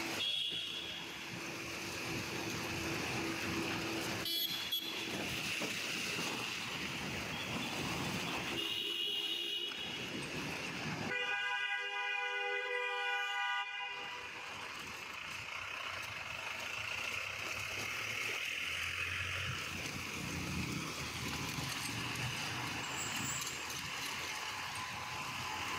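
Street traffic on a wet road: a steady hiss of tyres and engines, with a few short high-pitched toots and one long horn blast of about three seconds about halfway through.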